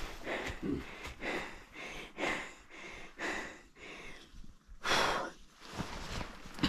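A hiker breathing hard from the climb: quick, heavy breaths in and out, about two a second, with one louder, longer exhale about five seconds in.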